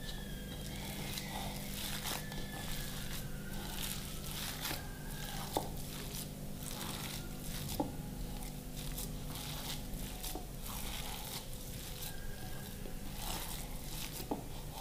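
A hand squishing and kneading mashed boiled potato mixed with spices and chopped coriander in a bowl: soft, repeated squelching and rustling strokes, with two small taps about two seconds apart near the middle.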